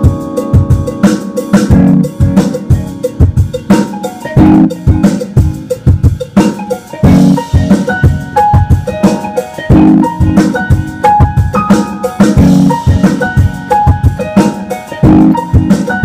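Electric keyboard played over a steady drum-kit beat: short, bright keyboard notes above a repeating pattern of kick and snare strokes, several a second.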